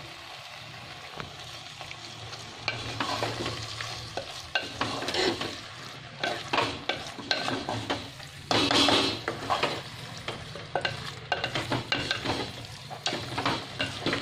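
Wooden spatula stirring and scraping pasta around an earthenware clay pot, in irregular strokes, with a light sizzle of frying underneath; the loudest scrape comes about eight and a half seconds in.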